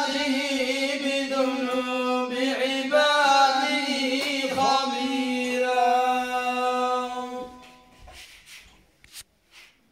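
Male voice chanting Quranic verses in the Moroccan Filali melodic style, unaccompanied, holding long drawn-out notes with melodic ornaments. The chanted phrase ends about seven and a half seconds in, leaving a short pause with a few faint soft sounds.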